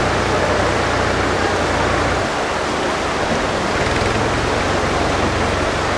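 Rushing river water from rapids, a loud steady hiss of white water; a low rumble beneath it drops away about two seconds in.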